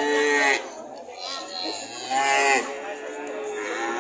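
Cattle mooing: a loud moo that ends about half a second in, a second around the middle, and a third starting near the end.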